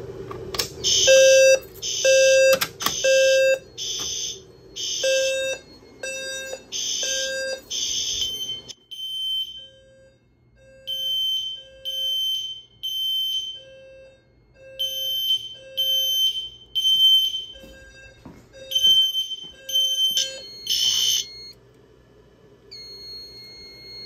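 Fire alarm system in alarm: SpectrAlert Classic speaker strobes playing a 520 Hz tone together with alarm horns, sounding in the temporal-three evacuation pattern of three half-second blasts, a pause, then three more. The blasts get quieter after about nine seconds, and a steady high beep sounds for about two seconds near the end.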